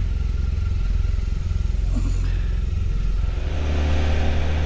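Motorcycle engine running steadily at road speed with wind noise. The engine note changes about three and a half seconds in.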